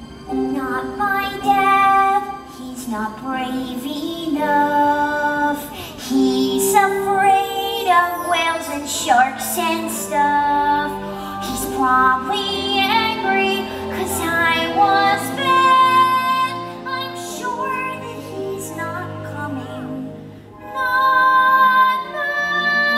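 A show tune from a stage musical: a high solo singing voice carrying a melody over backing music, with a short pause in the line about twenty seconds in.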